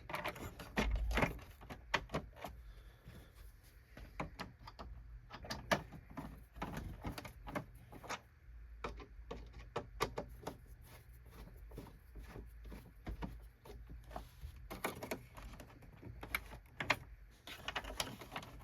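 Plastic base plate of a Hoover WindTunnel self-propelled upright vacuum being pried and worked loose from its tabs: many irregular clicks, knocks and rattles, with stuck screws holding it.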